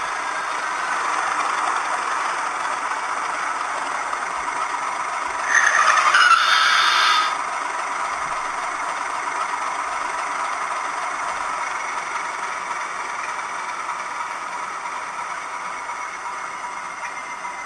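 Hornby TTS sound decoder playing a Class 31 diesel engine idling through the model locomotive's small speaker, a steady thrum. About five seconds in, a louder burst of noise lasts under two seconds. The sound gets gradually quieter towards the end.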